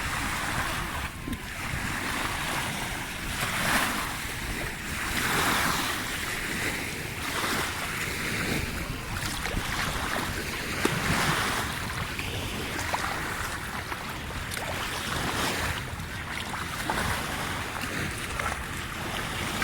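Aegean Sea waves washing in and out in irregular swells, with wind buffeting the microphone.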